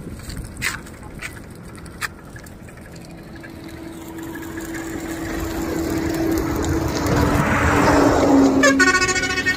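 A road vehicle approaching along the highway, its engine and tyre noise growing louder over several seconds with a slight drop in pitch as it passes, then a short horn honk near the end. A few sharp cracks come in the first two seconds.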